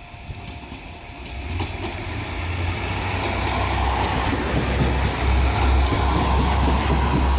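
Diesel multiple-unit train drawing closer, its engine's low rumble and the noise of its wheels on the rails growing steadily louder.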